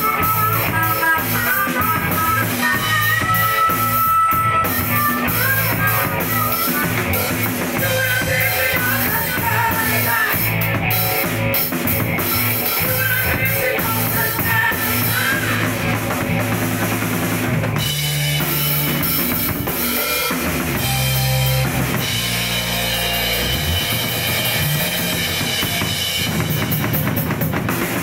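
Rock band playing live in rehearsal: drum kit, bass and electric guitar, with a harmonica wailing over the groove in the first half. About two-thirds of the way through, the band drops to a break of held low bass notes before the full groove returns.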